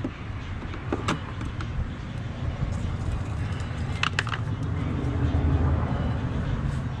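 A steady low rumble like a vehicle going by, swelling about five seconds in, with a few sharp clicks and knocks as a stuck part of the air box is worked loose.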